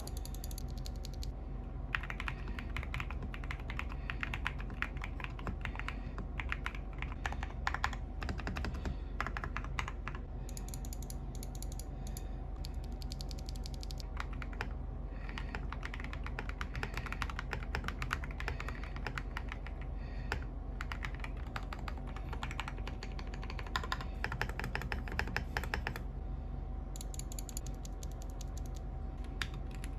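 Typing on a mechanical keyboard: quick runs of clacking keystrokes broken by short pauses.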